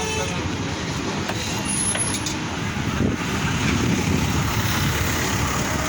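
Steady low rumble of vehicle and traffic noise.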